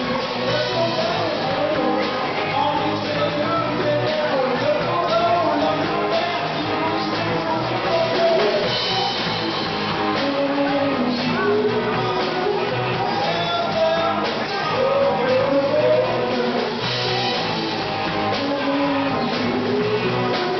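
Live rock band playing: electric guitars and a drum kit, with a woman singing lead through a microphone.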